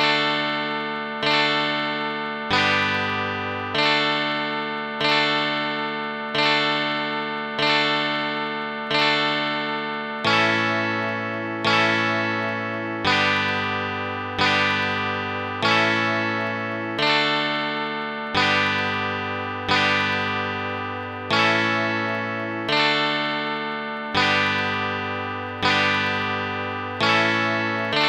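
Heavenly Chords chord app on a phone playing a short tune of plucked-string chords. The chords are struck evenly about every 1.3 seconds, each ringing and fading, and the chord changes every few strikes.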